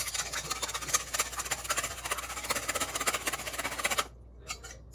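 Wire balloon whisk beating eggs and melted butter in a stainless steel bowl: a rapid, even run of metal clinks as the wires strike the bowl's sides. It stops abruptly about four seconds in.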